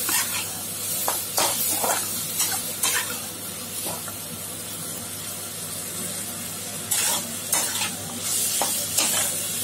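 Chopped ridge gourd, tomato and onion sizzling in hot oil in a kadai while a spatula stirs them, scraping against the pan in short, irregular strokes.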